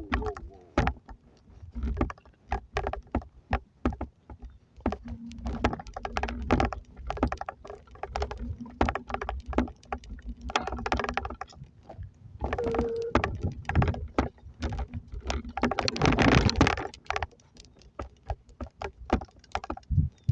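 Irregular clicks, knocks and rattles of objects being handled, with a louder noisy stretch about sixteen seconds in.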